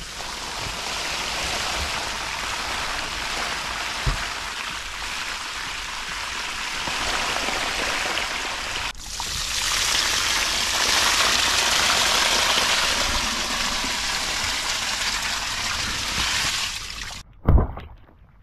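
Water spraying from a hose onto an inflatable boat's PVC hull and floor boards: a steady hiss that breaks off for a moment about halfway, then carries on until it stops near the end. A thump follows just after it stops.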